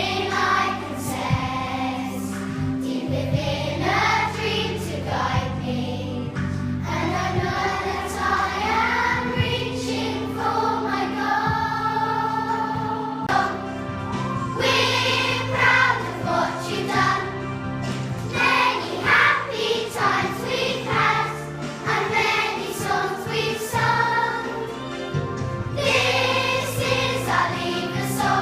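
Schoolchildren singing a song together as a choir, over steady musical accompaniment.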